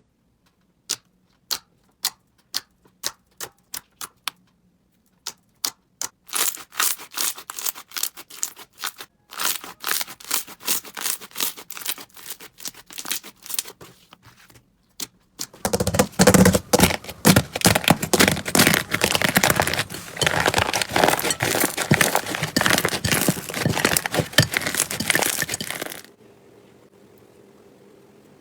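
Slime being pressed and worked by hand, giving crisp clicks and crackles. The clicks start sparse, become denser, then turn into loud continuous crackling that stops a couple of seconds before the end.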